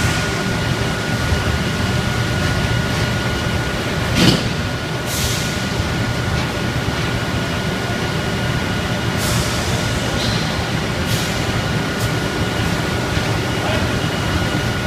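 Steady drone of powder-plant machinery with a constant high whine while an automatic bagging machine fills a 25 kg sack with urea resin powder. Short hisses come several times, about four, five, nine, eleven and twelve seconds in.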